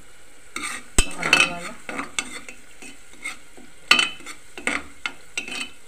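Metal ladle stirring and scraping onion-and-spice masala frying in oil in a pressure cooker, with a few sharp clinks of the ladle against the pot, loudest about a second in and again near four seconds; the oil sizzles between the clinks.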